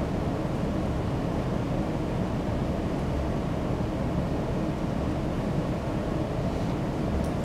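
Steady low rumble of room background noise, unchanging throughout.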